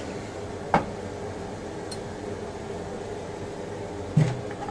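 Steady mechanical hum of a running kitchen appliance, with two short sharp knocks of utensils against the pans, one about a second in and one near the end.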